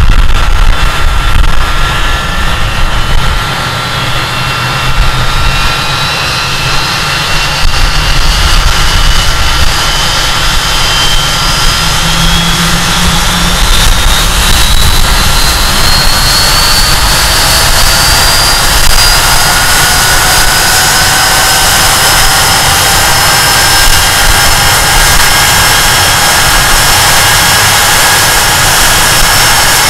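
Rolls-Royce Spey low-bypass turbofans of a Hawker Siddeley Nimrod MR2 running on the ground, heard from the intakes: a loud, high-pitched whine over a rumble. The whine climbs slowly in pitch through the second half as the engines spool up.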